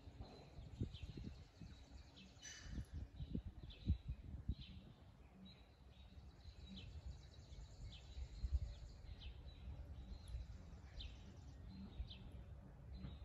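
Faint outdoor ambience with small birds chirping: short, high, falling chirps repeating irregularly, over an irregular low rumble with occasional bumps.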